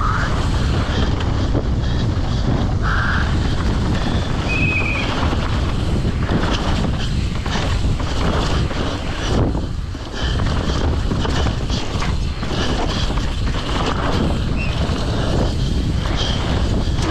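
Wind rushing over the microphone of a downhill mountain bike at speed, with the bike knocking and rattling over rough ground. There are a few short squeals in the first five seconds.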